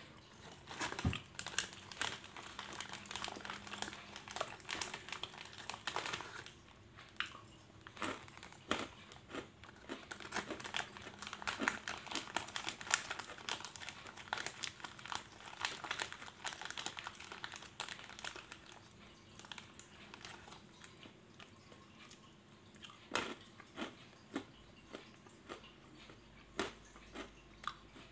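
Irregular clicks and crackles, many in a row for much of the time, thinning out for a few seconds past the middle and bunching again near the end, over quiet room tone.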